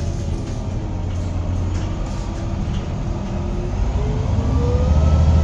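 Irisbus Citelis 10 city bus accelerating: a steady low engine rumble with a whine from the drivetrain that rises in pitch and grows louder from about four seconds in as the bus gathers speed.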